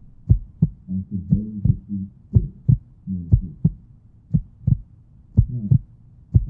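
Heartbeat sound effect: a steady double thump about once a second, over low wavering tones that fade out midway and come back near the end.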